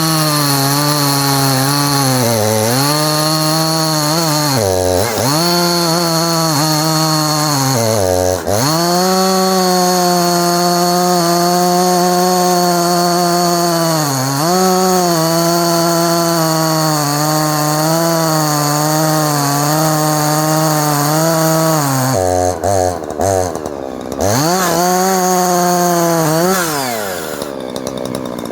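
Husqvarna 350 two-stroke chainsaw running at high revs. The revs drop sharply toward idle and climb back several times, and near the end it settles down to a quieter idle.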